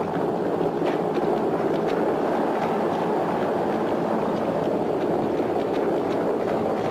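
Horse-drawn chariots racing: galloping horses' hooves and chariot wheels rolling over the sandy track, blended into one steady, dense rumble.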